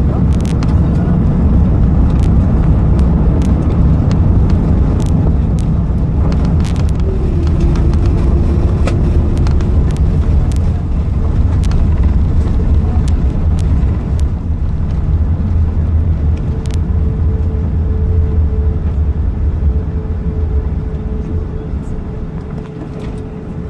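Loud, steady low rumble of an Airbus A380's engines, with a faint steady whine that holds from about a third of the way in; it eases slightly near the end.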